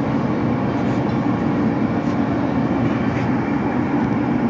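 A steady, loud mechanical drone with no breaks, its weight in a low hum.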